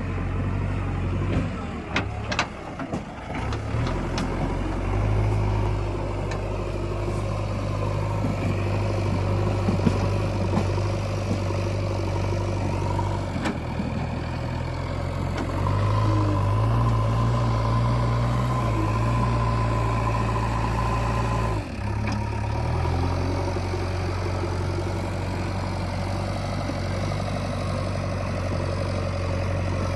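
JCB 3DX Eco Xcellence backhoe loader's diesel engine running steadily, its note shifting up and down several times as the load changes. A few sharp knocks come about two to four seconds in.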